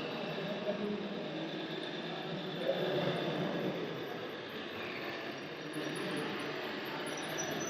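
Steady, fluctuating mechanical running noise, like a vehicle's motor.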